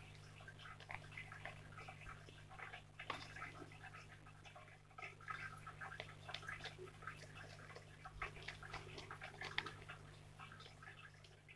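Faint, irregular sticky crackling and clicking of fluffy slime, made with shaving cream, being squeezed and pulled between the hands, over a steady low hum.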